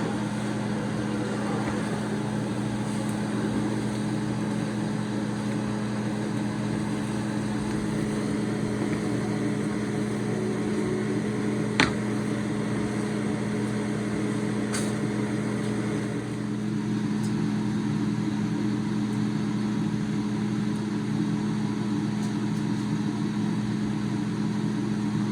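Steady mechanical drone with a constant low hum, broken once by a sharp click about twelve seconds in.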